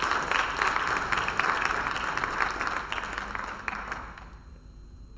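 Audience applauding, a dense patter of many hands clapping that dies away about four seconds in.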